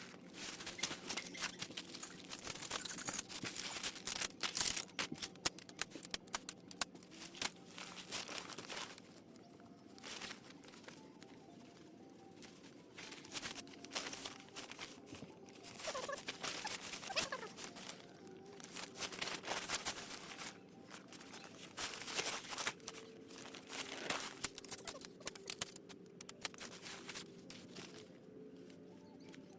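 Rustling and crinkling of bedding and camping gear being handled, a run of irregular clicks, scrapes and rustles that come in bunches, over a faint steady hum.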